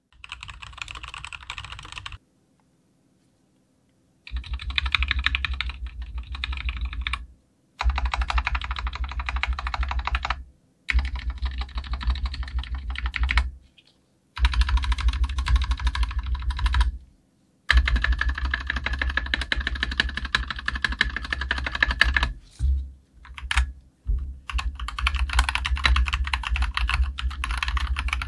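Fast typing on a COX CK87 mechanical keyboard with Gateron Yellow linear switches and ABS doubleshot keycaps: quick keystroke clicks in runs of a few seconds, broken by short pauses and one longer pause near the start.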